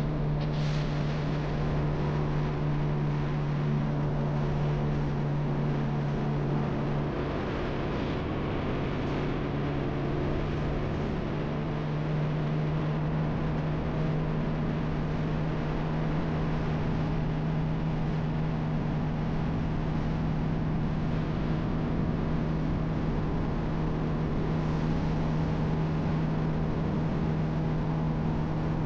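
Boat outboard motor running steadily at speed, a constant low engine hum over wash and wind noise; the note shifts slightly about seven seconds in.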